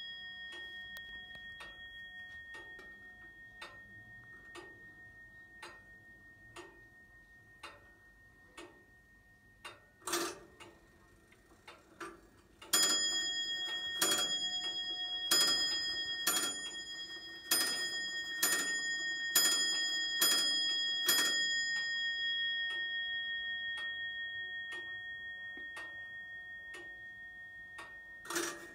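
Comtoise wall clock ticking about once a second. Partway through come a couple of louder clicks from the movement, then the clock strikes nine on its bell, about one strike a second, and the bell rings on and fades. A single further bell strike comes near the end.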